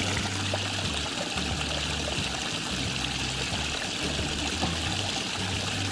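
A small creek trickling over a mossy rock ledge and splashing onto the stones below: a steady hiss of running water.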